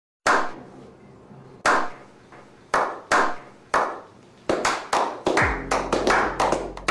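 Slow clap by a small group of men: single loud claps about a second apart at first, quickening into faster clapping from around four and a half seconds in.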